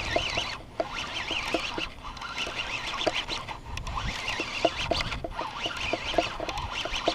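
Birds calling around the water: many short chirps and warbling notes, repeated irregularly, over a low rumble.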